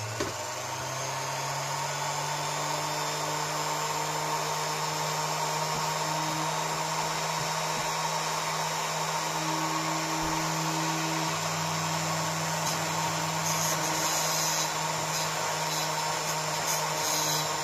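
Flexible-shaft rotary tool running steadily at speed, its small brass wire brush scrubbing the aluminium engine casing of a Suzuki FZ50 to clean it.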